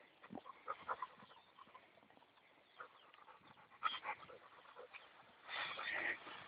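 A Labrador panting faintly as it pushes through tall wheat, with scattered soft rustles of the stalks and a stronger breathy stretch near the end.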